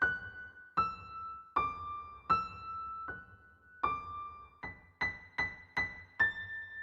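Background music: a slow melody of single notes on an electric piano, about two notes a second, each struck and briefly held.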